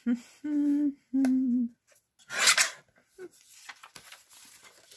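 A few hummed notes, then a guillotine paper trimmer's blade arm brought down through a sheet of paper: a brief loud slicing swish about two and a half seconds in, followed by light paper rustling and small clicks.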